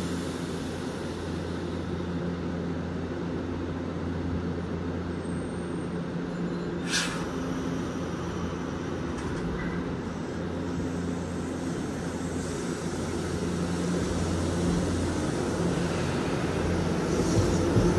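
Nankai 7100/10000 series electric train standing at the platform, its onboard equipment humming steadily, with one brief sharp noise about seven seconds in. Near the end it grows louder with a rising motor tone as the train starts to pull away.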